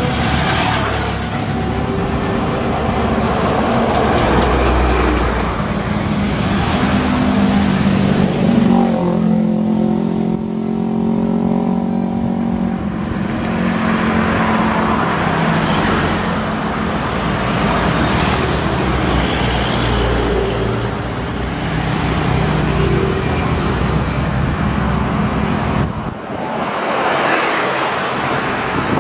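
Road traffic passing close by: buses and other vehicles with diesel engine drone and tyre noise, steady and loud, with a heavier engine tone strongest around the middle.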